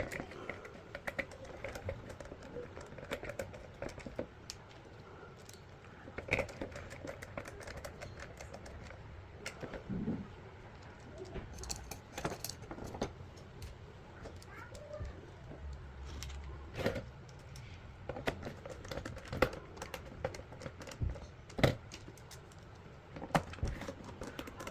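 Scattered clicks and light knocks of small parts being handled as a handheld welding purge monitor's case is put back together.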